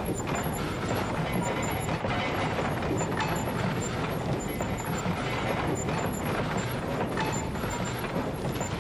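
A steady, dense noisy din with no clear tune or voice.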